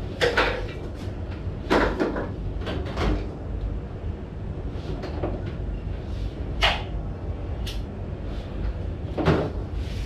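Hands slapping and patting the shoulders and back during a massage: about seven short, sharp strokes at uneven intervals, over a steady low rumble.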